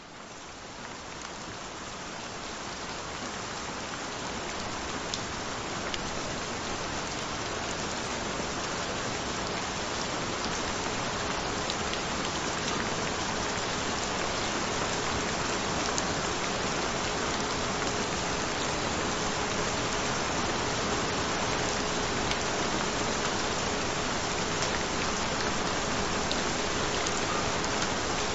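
Steady rain, fading in over the first few seconds and then holding even, with a faint steady tone beneath it.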